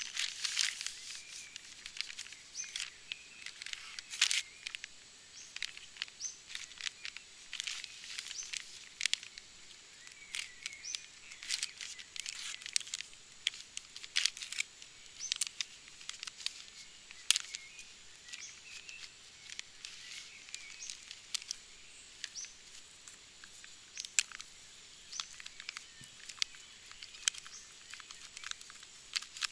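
Crinkling and rustling of the plastic and foil packets of a Pakma MRE field ration being handled and torn open, in irregular sharp crackles.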